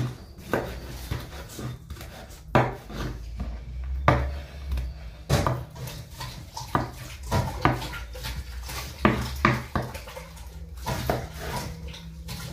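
Irregular clinks and knocks of dishes, pots and utensils being handled during food preparation, over a steady low hum.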